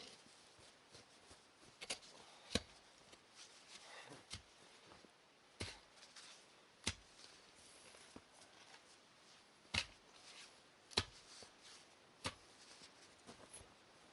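Shovel chopping into the ground: sharp, irregular strikes every second or two, about eight in all.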